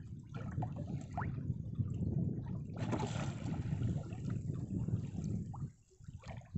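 Water lapping and trickling against the hull of a small wooden boat, an uneven low splashing that drops away briefly near the end.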